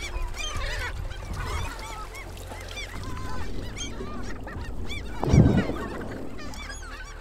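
A flock of gulls calling over and over as they crowd in to feed on thrown fish scraps. About five seconds in, a loud splash as a gull plunges into the water.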